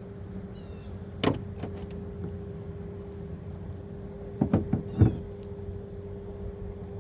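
Steady electric hum of a small boat's trolling motor, with a single sharp knock a little over a second in and three quick knocks, the last the loudest, around four and a half to five seconds in.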